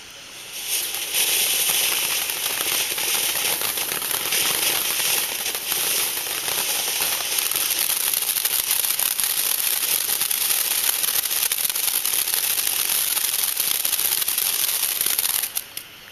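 Firehawk 'One Tough Cookie' ground fountain firework spraying with a dense hiss and crackling. It flares up about a second in and dies out suddenly shortly before the end.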